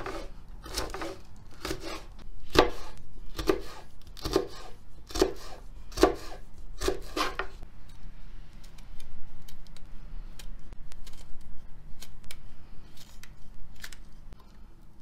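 Kitchen knife slicing a capia pepper into strips on a plastic cutting board, each cut ending in a knock of the blade on the board, about one a second. After about eight seconds the strokes turn to fainter, lighter clicks as smaller pieces are trimmed.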